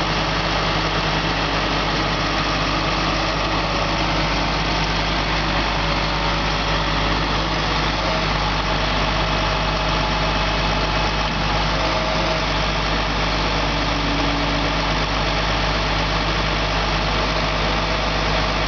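International 4300 rollback's diesel engine running steadily at idle while it drives the hydraulics that bring the Jerr-Dan bed back down flat.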